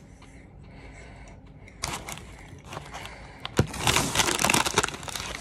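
Close handling noise: rustling and crackling that starts sporadically about two seconds in and turns dense and loud for the last second and a half.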